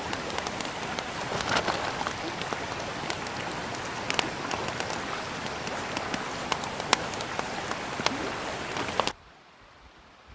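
Campfire crackling, a steady hiss with sharp pops scattered through it, until it cuts off abruptly near the end.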